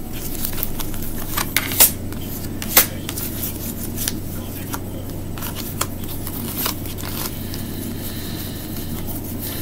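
A deck of oracle cards shuffled by hand: soft scraping and riffling with scattered sharp card snaps, the loudest about two and three seconds in, over a steady low hum.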